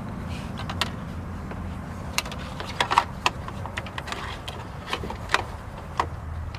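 Scattered light clicks and taps from wiring and small plastic parts being handled and fed into place, over a steady low hum.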